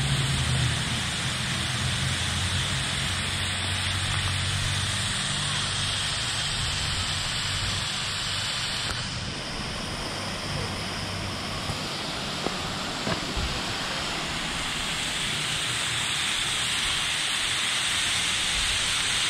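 Steady rushing hiss of a waterfall spilling off a rock ledge onto the rocks below. A low hum lies under it for about the first half.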